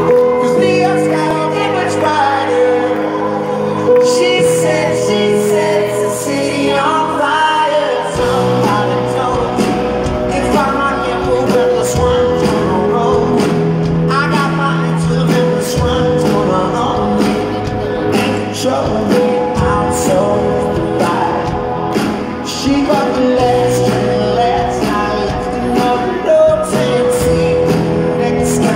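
Live pop-rock band with a male lead vocal, heard through an arena PA from among the audience. Drums and bass come in about eight seconds in.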